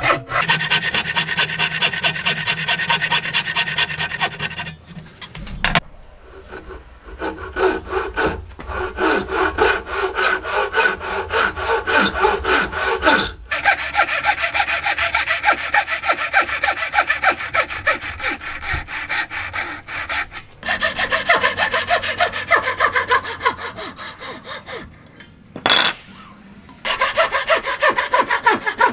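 Hand saws cutting wood: repeated back-and-forth saw strokes in several long spells, with short breaks between them.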